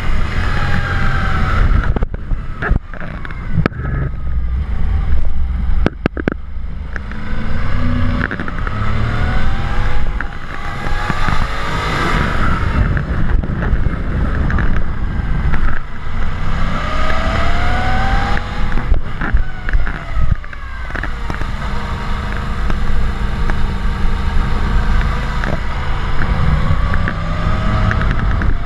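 Motorcycle engine running under way, its pitch rising and falling repeatedly as it speeds up and changes gear, over heavy wind rumble on the camera microphone. A few sharp knocks come in the first few seconds.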